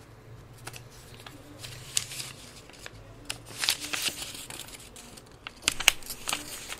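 Soft rustling and scattered clicks with a faint low hum underneath; no speech.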